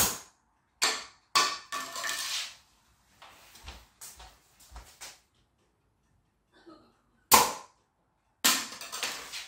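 A 3D-printed PLA stomp glider is launched twice, once at the start and again about seven seconds in, each time with a sharp bang from the launcher. Each launch is followed within a second by clattering as the plastic glider hits and skids on the hard floor. Between the launches come a few soft footsteps.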